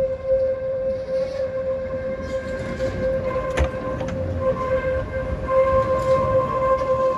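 Tatra T4D tram set rounding a curve, its wheels squealing on the rails with one steady high-pitched tone, with a few short clicks and low thumps from the wheels over the track partway through.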